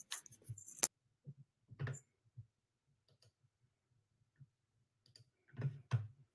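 A few scattered faint computer clicks, single ones about one and two seconds in and a cluster of louder ones near the end.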